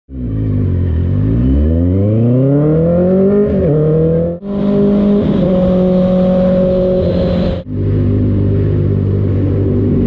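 Benelli SRK 600's 600 cc inline-four engine in three cut-together clips. In the first it accelerates, its pitch climbing steadily with a brief dip about three and a half seconds in. In the second it runs at a steady high pitch under wind rush at road speed, and in the third it runs steadily at a lower pitch.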